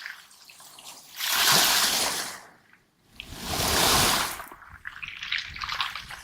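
Waves washing over a pebble beach: a crackling trickle of pebbles rattling in the backwash, broken by two loud rushing swells, the first about a second in and the second about three seconds in.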